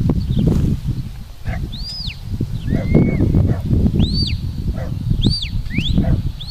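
A handler's shepherd's whistle sending commands to a border collie working sheep: a run of about six short whistled notes, most rising and falling, one lower and flatter, with wind rumbling on the microphone throughout.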